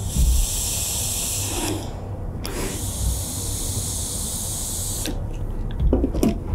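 Hose-fed steam iron hissing out steam in two long bursts while pressing fusible material onto fabric: the first lasts about two seconds, and the second starts half a second later and lasts about two and a half. A low rumble runs underneath.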